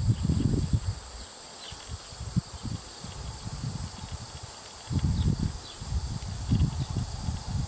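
Outdoor ambience: an irregular low rumbling noise, strong in the first second and again from about five seconds in, with faint high chirps scattered through.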